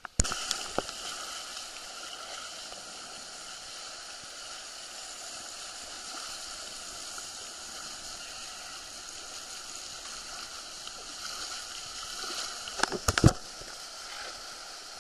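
Steady rush of flowing river water, with a quick cluster of sharp knocks near the end.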